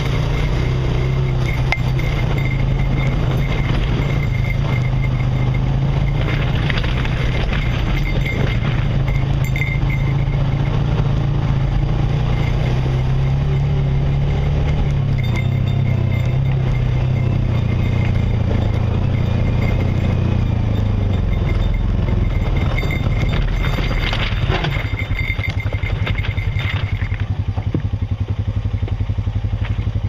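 Off-road vehicle's engine running at low, fairly steady revs while crawling a rough trail, with scattered crackles from the tyres over rock and gravel. The engine note drops about 15 seconds in and again near the end.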